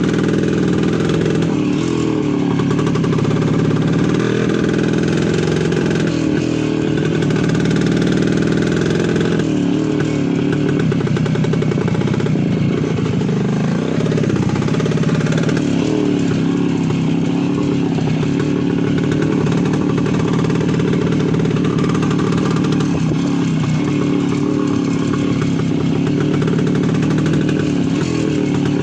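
Voskhod 3M motorcycle's single-cylinder two-stroke engine running steadily, its pitch rising and falling a little.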